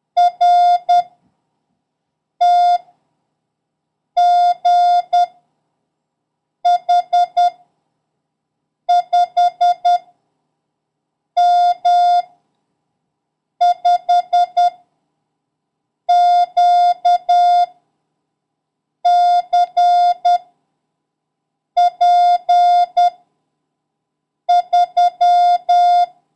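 Morse code sent as a keyed, mid-pitched beep, one character at a time: each character is a quick cluster of short and long beeps (dits and dahs), with a gap of about a second before the next. These are random letters and numbers sent for copying practice.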